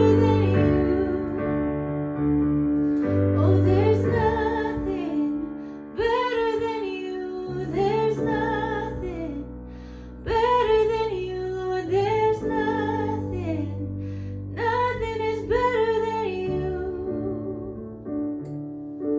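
A woman singing with piano accompaniment, her long held notes sung with vibrato over sustained low chords.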